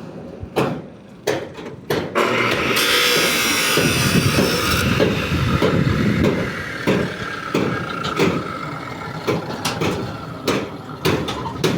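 Construction site work: a string of sharp knocks, with a motorised machine starting up about two seconds in and running steadily under the knocks.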